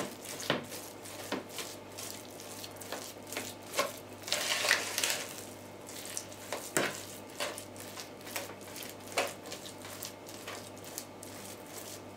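Cottage cheese being mashed and stirred by hand in a plastic bowl: irregular scrapes and light knocks of the utensil against the bowl, with a soft squishing of the curd mixture.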